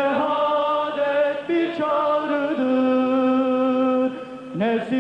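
A sung Turkish Islamic anthem (nasheed): a voice draws out long held notes, moving to a new pitch a few times without clear words.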